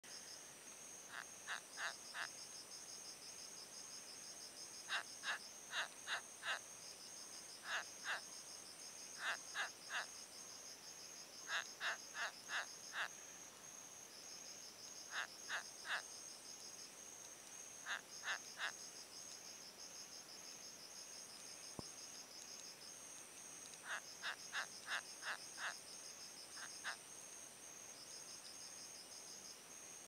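Land hermit crab stridulating, a 'gyuu gyuu' sound made by rubbing its inner legs against the inside of its shell. It comes in groups of three to six short pulses every couple of seconds, over a steady high insect trill.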